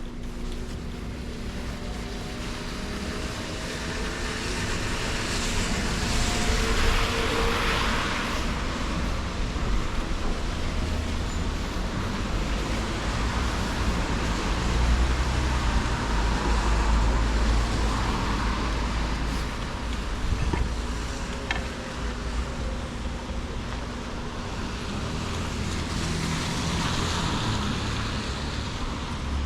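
Road traffic passing on wet pavement: tyre hiss swells and fades about three times, over a steady low rumble.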